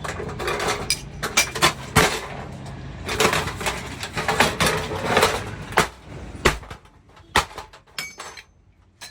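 Irregular knocks, clinks and clatter of hard objects being handled and struck: a busy run of sharp hits for about six seconds, then a few scattered knocks near the end.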